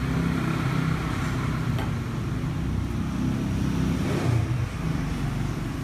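Steady low rumbling noise with a light hiss above it, running evenly without a break.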